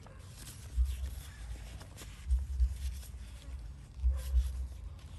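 Deep low double thumps in a steady slow beat, about one pair every second and a half to two seconds, with faint crinkling and clicks over them.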